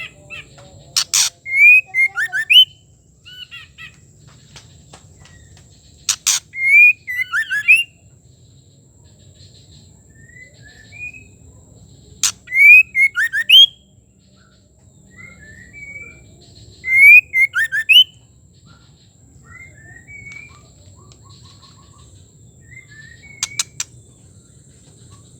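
Female white-rumped shama calling: short phrases of clear whistled, gliding notes, each opened by a sharp click, repeated about every five seconds.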